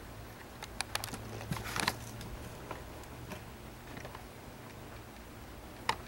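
A scattered run of light clicks and taps over a steady low hum, several close together about a second in and a few fainter ones later, from small parts being handled during a laptop teardown.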